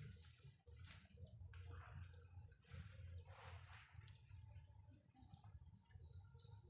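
Faint outdoor birdsong: scattered short high chirps and calls from several birds over a steady low rumble.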